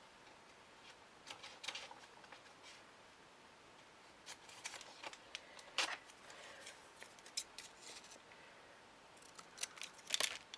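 Small scissors cutting out a paper label: faint, short snips spaced out with pauses, some in quick pairs.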